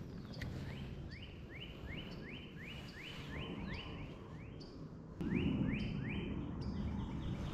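A songbird repeating a long series of short, rising whistled notes, about two to three a second, with a brief break before the series resumes. A low rustling noise comes in about five seconds in.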